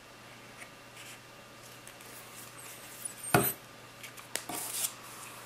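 Small paper craft pieces being handled: faint scratching and rustling of a rolled card tube. A little past three seconds in comes one sharp knock as the plastic tacky-glue bottle is set down on the table, followed by light scraping of paper.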